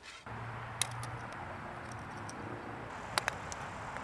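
Steady outdoor background hiss with a low hum in the first second, and a few light clicks, two close together near the end, as a small level is set against the marble headstone.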